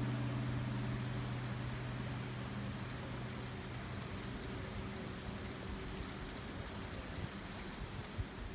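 A chorus of cicadas in summer, one steady high-pitched drone without breaks.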